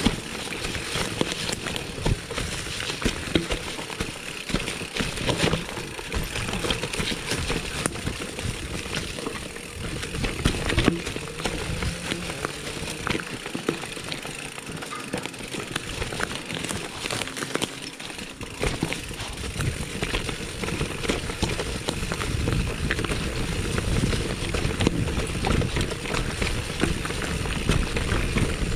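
Mountain bike riding downhill over a rough dirt and stone trail: tyre noise with constant rattling and clicking from the bike over bumps, and a low wind rumble on the microphone that grows stronger near the end.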